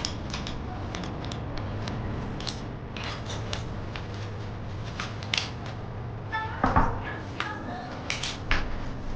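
Irregular light metallic clicks and clinks of handled hardware, over a steady low rumble, with a brief squeak about two-thirds of the way through.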